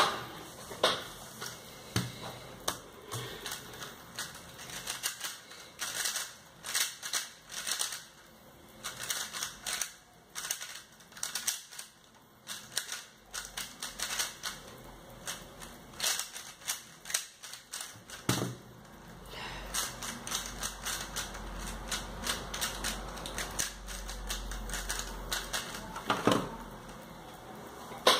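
A 3x3 speed cube being turned fast by hand: bursts of rapid clicking and clacking as its layers snap round, broken by short pauses, with a few louder single knocks.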